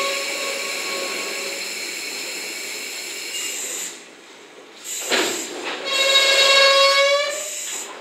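Steel-on-steel squeal from the wheels of a slowly rolling train of rail-carrying Chiki flatcars, a steady high tone with a hiss over it. It fades in the first few seconds, a short rushing noise comes about five seconds in, and a loud squeal returns near the end.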